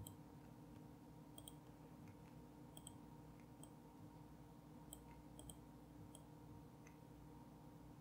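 Faint computer mouse clicks, a dozen or so scattered through the time, several in quick pairs, over near-silent room tone.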